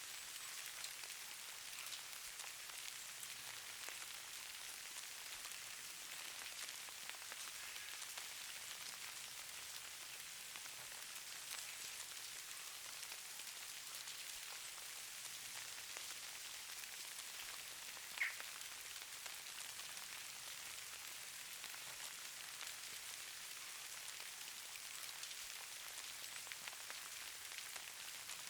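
Falling precipitation pattering softly: a steady fine hiss of many tiny ticks. There is one sharper single tick about two-thirds of the way through.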